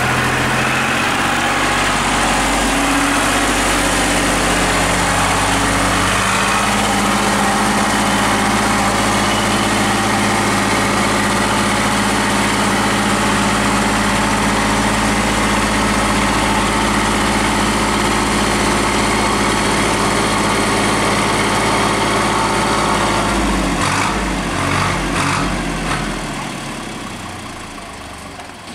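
Small tractor engine running, stepping up in speed about six seconds in and then holding a steady note; the sound changes near the end and fades as the tractor drives away.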